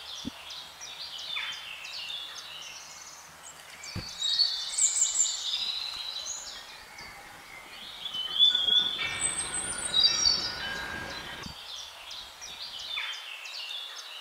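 Songbirds singing in the trees: bursts of high chirping, warbling phrases that come in two clusters, over a faint background hiss. A low rush of noise comes in near the middle and cuts off sharply.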